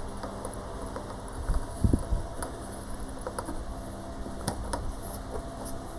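Light clicks and metallic ticks of tools and fork parts being handled during motorcycle fork reassembly, with a few dull knocks about two seconds in, the loudest sounds here.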